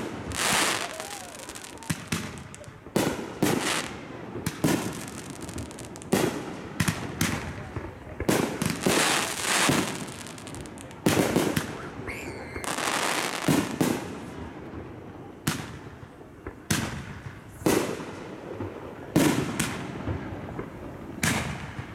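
Aerial fireworks shells bursting in quick succession, a sharp bang every second or two, several followed by crackling from glitter and strobe effects.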